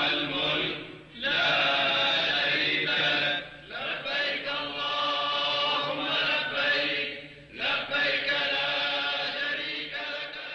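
Many voices chanting together in long phrases with brief pauses between them.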